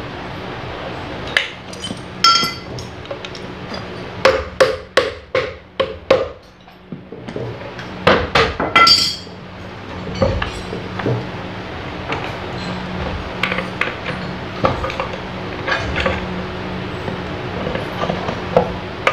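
Hand tools knocking and clinking on metal while the front casing of a gondola hoist machine is being taken off, with a run of about six quick taps partway through and another cluster a couple of seconds later, then lighter clicks.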